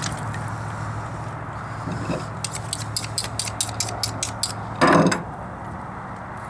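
Boning knife being honed on a steel: about a dozen quick, light metal-on-metal strokes, around six a second, followed about a second later by a louder clunk as the steel is set down on the tailgate. A steady low hum runs underneath.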